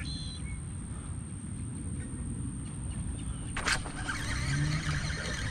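Wind buffeting an outdoor action-camera microphone, a steady low rumble, broken by one sharp knock a little over half way through.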